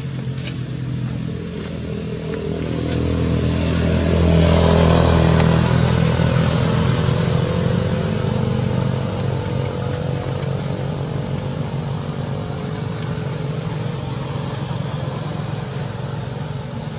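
A motor vehicle's engine runs steadily close by. It grows louder about three seconds in, is loudest around five seconds, then slowly eases off.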